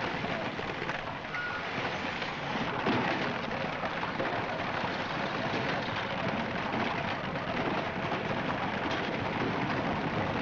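Many wooden barrels rolling and bumping down a paved street: a continuous rumbling clatter.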